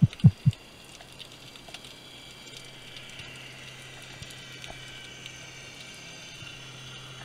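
Underwater sound picked up by a diver's camera: three short low knocks in the first half second, then a faint steady hum and a thin, fine crackling.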